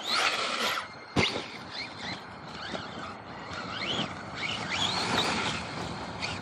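Electric RC monster truck's brushless motor whining up and down with the throttle over a rough, gritty tyre noise. There is one sharp impact about a second in, as the truck takes a hit.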